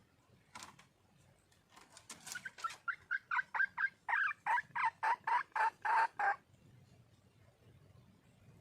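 Wild junglefowl hen calling: one sharp note, then a run of short clipped clucks that quicken and settle into about three or four a second for several seconds before stopping, a hen's call to attract a male.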